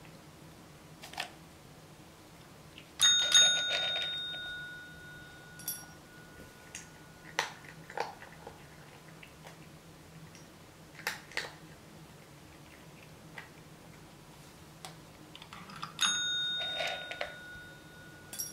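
A desk call bell struck twice, about 13 seconds apart, each ring a clear high tone fading over two to three seconds; each ring earns the cat a serving of kibble. Between the rings come light clicks and crunches of dry kibble being eaten from a ceramic bowl.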